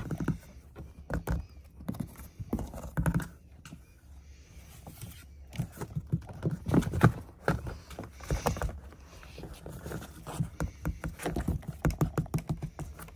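Irregular light taps, knocks and scratches on a cardboard box, made by kittens' paws and a hand batting at each other through a hole in the box.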